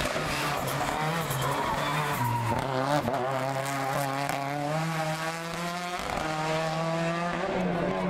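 Hillclimb race car's engine revving hard through a hairpin, with a few sharp pops in the first two seconds and the tyres squealing. The pitch climbs for a few seconds, drops sharply about six seconds in as the driver shifts or lifts, then holds steady.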